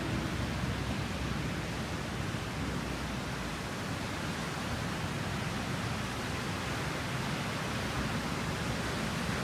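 Surf breaking and washing up a sandy beach, heard as a steady, even hiss of sea noise.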